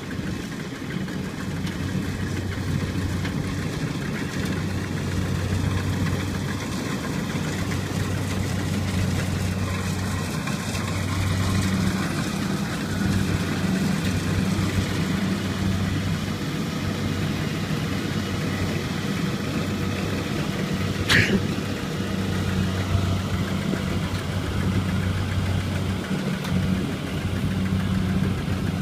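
Two-wheel walking tractor's single-cylinder diesel engine running steadily, its hum swelling and easing as the machine works to pull free of the mud. A single sharp click about 21 seconds in.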